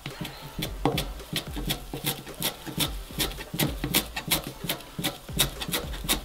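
Chef's knife chopping fresh parsley on a cutting board: a steady rhythm of about three knife strikes a second.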